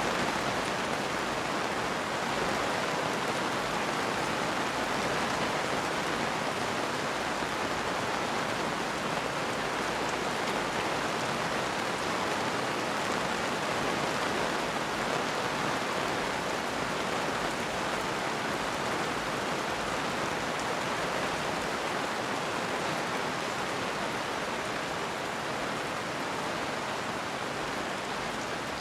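Steady rainfall, an even continuous hiss of rain with no thunder claps.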